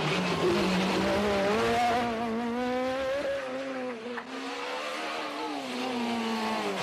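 Rally car engines revving hard on a closed road, a Peugeot 206 and then a Renault Clio. The engine note rises and falls through gear changes, with a short drop in level about four seconds in.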